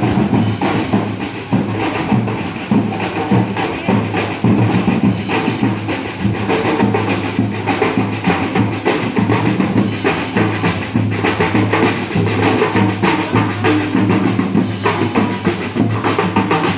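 Parade band music led by drums: bass drum and snare beating a quick, steady marching rhythm over sustained low instrument tones.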